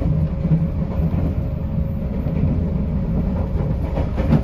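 Steady low rumble of a 381-series electric train car running, heard from inside the passenger car, with a faint steady hum above it and one brief knock about four seconds in.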